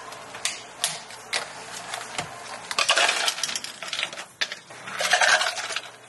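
A few sharp clicks as a clear plastic dome lid is pressed onto an iced-coffee cup, then ice cubes clattering into plastic cups in two dense bursts, about three and five seconds in.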